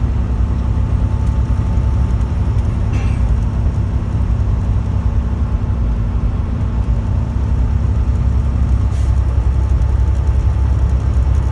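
Steady low rumble of a semi-truck's engine and road noise heard from inside the cab while cruising on the highway, with a faint hum that fades out about eight seconds in.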